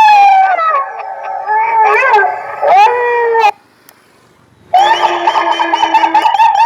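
Novelty electronic car horn playing a recorded dog howl through its horn speaker: loud, wavering howls sliding down in pitch for about three and a half seconds. After a short silence, another sound effect starts near the end, steadier with a held tone.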